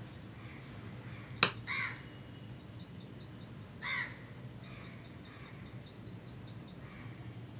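Crows cawing: two short, harsh caws about two seconds apart, with fainter caws further off. A sharp click comes just before the first caw, and a steady low hum runs underneath.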